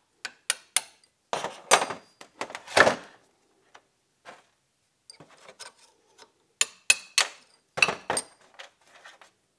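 Small hammer striking a punch against the retaining C-clips on a front axle shaft's U-joint caps. It sounds as sharp metal taps in quick groups of two to four, the loudest about three seconds in. There are lighter clinks between the groups as the steel shaft is shifted on the steel bench.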